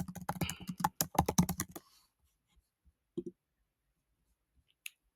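Typing on a computer keyboard: a quick run of keystrokes for about two seconds, then two single clicks.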